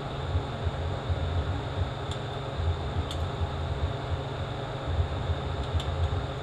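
Steady low rumble of workshop background noise with a faint constant high whine, and a few light clicks as small transmission parts are handled on the bench.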